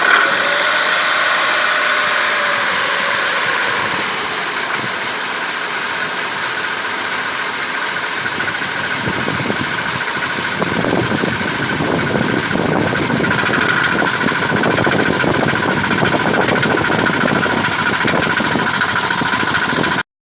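Chrysler 2.4-litre four-cylinder engine of a Dodge Caravan running, with a repeated knock that grows more prominent about halfway through. The knock comes from the flexplate (drive plate) between engine and transmission. The sound cuts off abruptly just before the end.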